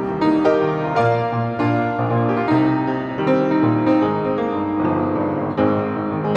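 Solo piano playing a pop song arrangement: a melody over chords and a bass line, with notes struck and left ringing.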